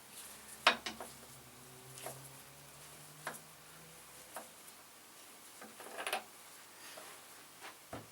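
Metal tools clinking and knocking against a motorcycle handlebar bar end as it is removed: several sharp, scattered clinks, the loudest about two-thirds of a second in and followed by a faint metallic ring.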